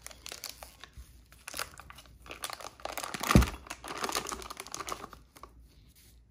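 Plastic piping bag crinkling and rustling in gloved hands as thick soap frosting is spooned into it, with one dull thump a little over three seconds in.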